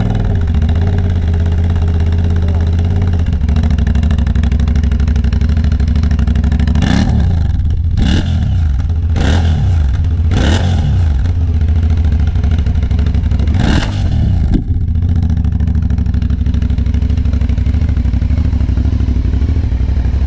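Aprilia Shiver 900's 90-degree V-twin engine idling, with five quick throttle blips in the middle, each rising in pitch and falling back to idle.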